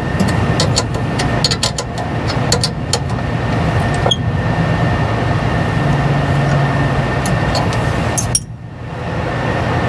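Light metallic clicks of wrenches working a nut and bolt on a carburetor throttle-linkage arm, over a steady mechanical background hum. The background drops away briefly near the end.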